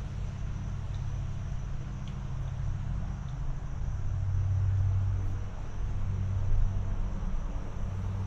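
Tractor engine running steadily at a low, even pitch, getting somewhat louder for a couple of seconds around the middle.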